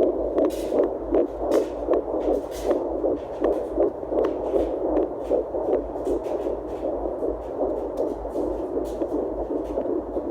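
Fetal heartbeat at 10 weeks through a home fetal Doppler's speaker: a fast, rhythmic whooshing pulse at nearly three beats a second, the beats clearest in the first half and blurring into a steadier whoosh later on. Scattered short clicks sound over it.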